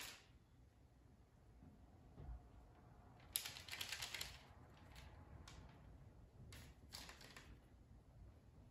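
Faint scratching of a scoring blade slicing into the top of a risen sourdough loaf on parchment paper: a quick flurry of short strokes about three and a half seconds in, then a few single strokes.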